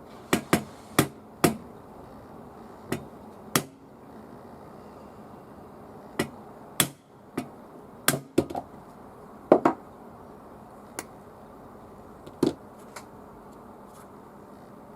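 Irregular sharp knocks and clicks of hand work on the impact driver's metal and plastic parts during disassembly, about fifteen in all, some in quick pairs.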